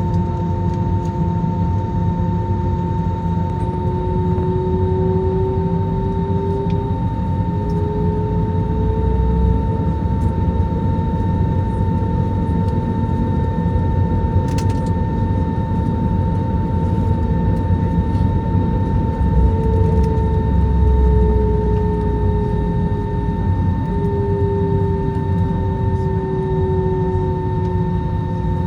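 Airliner cabin noise from an Airbus A321neo's Pratt & Whitney PW1133G geared turbofan engines running steadily: a low rumble under a steady whine, with a lower engine tone that slowly drifts up and down.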